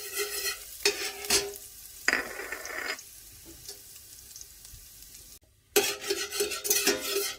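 Chopped garlic sizzling in hot oil in a stainless steel pan, with a metal spoon scraping and clinking against the pan as it stirs. The stirring is heavy in the first second or so, then eases to a quieter sizzle, and comes back strongly near the end after a brief gap.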